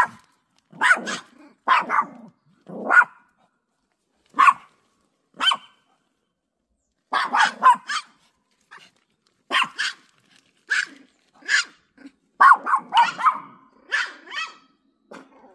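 Small toy poodles barking, short sharp barks repeated irregularly, at times two or three in quick succession. This is alert barking at a strange dog on the other side of the fence.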